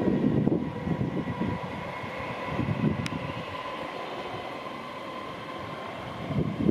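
Train wheels rumbling on the rails as a class 313 electric multiple unit runs away over the tracks, with a steady whine running under it. The rumble dies down through the middle and builds again near the end, and there is one sharp click about three seconds in.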